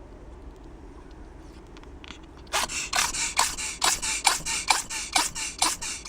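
Ferret sneezing in a rapid fit: a fast string of short, sharp sneezes, about three a second, starting a couple of seconds in.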